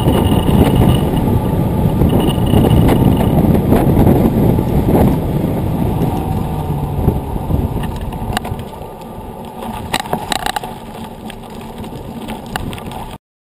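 Rushing wind on the bike-mounted camera's microphone and the rumble of knobby mountain-bike tyres rolling at speed. After about six seconds it eases off and grows quieter, with a few sharp clicks, and it cuts off suddenly near the end.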